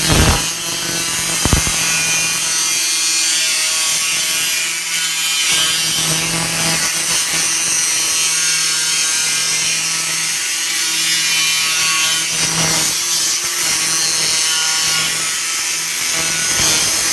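Power tool running steadily with a constant hum under a loud, even hiss, during work on the coop's metal roof.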